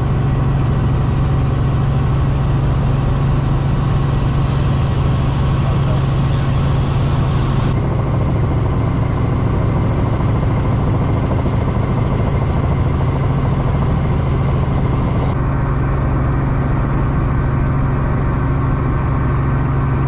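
Helicopter in flight: a loud, steady, low drone of engine and rotor.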